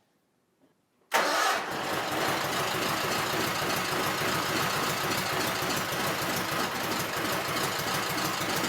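Kohler KT17 Series 2 twin-cylinder engine in a John Deere 317 garden tractor being started: it suddenly cranks and fires about a second in and keeps going steadily. This is its first start after a rebuild, and it is not yet running properly, short of fuel.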